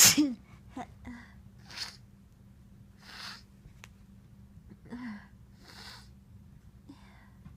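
A person sneezes once, loudly, at the very start: a sharp burst with a falling voiced tail. Several shorter, softer noisy breaths follow, spaced about a second apart, one of them about five seconds in with a slight voice to it.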